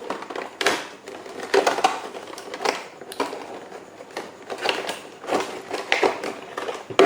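Plastic packaging crinkling and rustling as the quadcopter's accessories, the spare propellers among them, are handled, with irregular crackles and light clicks.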